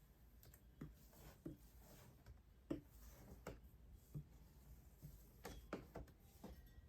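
Faint squeegee strokes over wet window film on glass: a dozen or so soft, short squeaks and taps at irregular intervals, barely above room tone.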